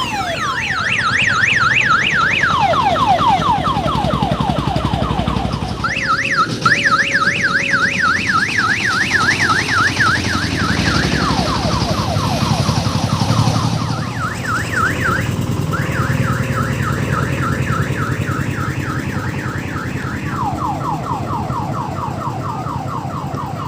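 Loud electronic multi-tone siren on an odong-odong mini tourist train. It switches every few seconds between a fast high warble and a run of quick falling sweeps. A diesel engine runs underneath.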